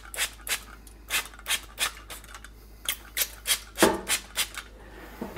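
Hand-pumped oil spray bottle of avocado oil giving a quick run of short, hissing spritzes, about two to three a second, about a dozen in all.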